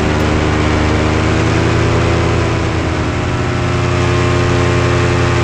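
Engine and propeller of a powered paraglider trike running steadily in flight, with a strong low drone; the pitch eases slightly about halfway through and then picks back up.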